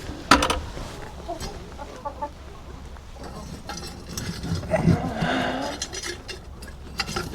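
Chickens clucking in a henhouse, with a sharp knock about a third of a second in and a longer hen call about five seconds in.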